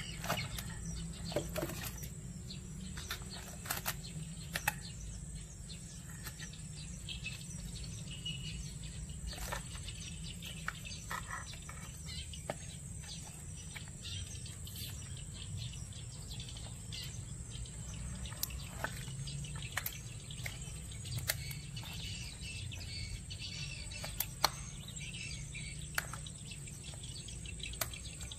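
Scattered sharp clicks and cracks of a knife cutting and prying open a mud crab's shell on a wooden board. A steady high whine and a low hum run underneath.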